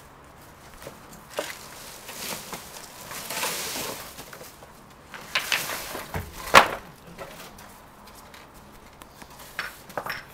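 Timber boards being handled and set down: scattered knocks and scrapes of wood, with one sharp, loud knock about six and a half seconds in.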